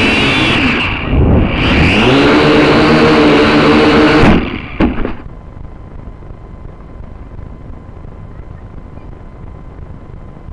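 Drone's propeller motors whining loudly right at the microphone. They dip briefly about a second in, spool back up with a rising pitch, then cut off abruptly after about four seconds. A couple of short knocks follow, then only a low hiss with a faint steady tone.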